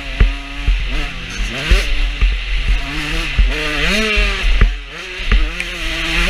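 Motocross bike engine revving up and dropping back several times as the rider accelerates and shifts along a dirt track, with heavy wind buffeting on the helmet camera and scattered thumps from the ride.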